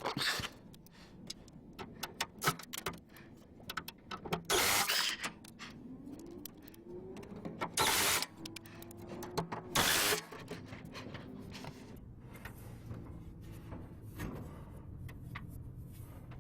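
Hands working on a furnace's parts and tools: scattered clicks and knocks, with three short rasping scrapes, the loudest sounds, about four, eight and ten seconds in.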